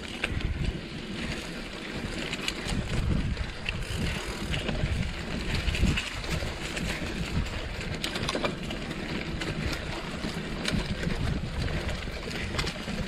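Mountain bike riding a dry dirt singletrack, heard from a handlebar-mounted camera: wind rushing and buffeting over the microphone, with frequent clicks and rattles from the bike jolting over bumps.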